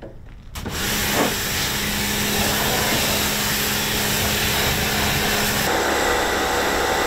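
Electric anchor windlass hauling in the anchor chain: a steady motor hum under a loud, even hiss that starts abruptly about half a second in.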